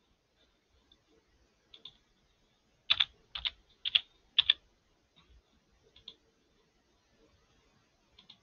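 Typing on a computer keyboard: four sharp keystrokes over about a second and a half, starting about three seconds in, with a few fainter clicks before and after.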